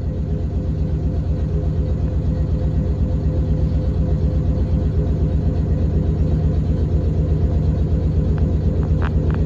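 Class 455 electric multiple unit's onboard machinery running while the train stands still: a loud, steady low throb pulsing rapidly and evenly over a constant hum. A few short clicks come near the end, just before the throb stops.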